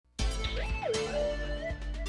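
TV programme opening theme music starting abruptly, with a steady bass beat under several pitched notes, one sliding up and then back down near the start.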